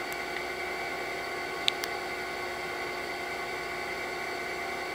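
Steady background hiss and faint hum, broken by a few short sharp clicks: one at the start and two close together near the middle. The clicks are the BlackBerry Bold 9650's trackpad being pressed to open the connections menu.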